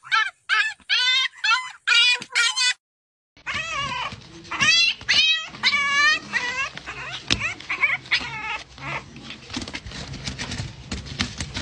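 Puppies yelping, about eight short high cries in quick succession as a goose pecks at them. After a brief silence, young puppies whining and squealing repeatedly over a low hum.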